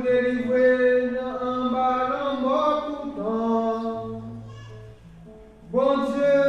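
Slow liturgical singing: a voice sings long held notes that glide between pitches, drops away about four and a half seconds in, and comes back strongly about a second later.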